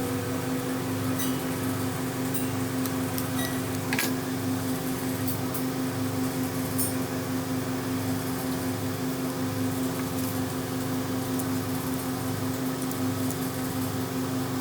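Antique Thor bench grinder's electric motor running steadily at speed: a steady hum with a slight pulsing beat underneath, and a few faint ticks.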